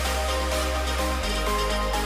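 Electronic dance background music with a sustained bass line and a steady beat.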